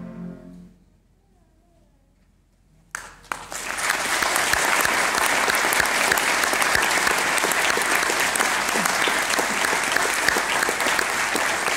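A concert band's final held chord dies away within the first second, followed by about two seconds of near silence. Then the audience bursts into steady, loud applause that lasts to the end.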